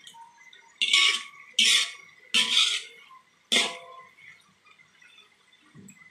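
Metal spoon scraping and knocking against a wok while stir-frying cubes of fried tofu: four sharp metallic strokes in the first four seconds, each ringing briefly, then only faint sound.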